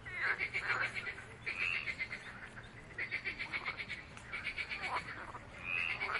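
Frogs calling: repeated bursts of fast, rattling pulsed croaks, each train lasting about a second, with a couple of short higher chirps between them.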